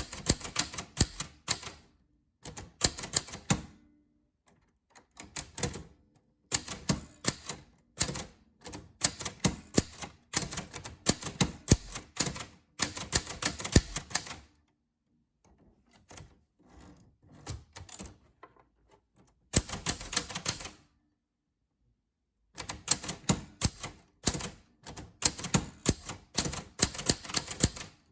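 Typewriter keys struck in quick runs of sharp clicks, broken by short pauses between words and lines. The typing goes faint for a few seconds past the middle and stops for a moment after that.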